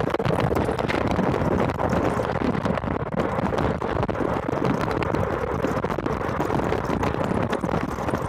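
Golf cart driving along a road: a steady rumble of the cart and its tyres, with wind buffeting the microphone and frequent small rattles and knocks.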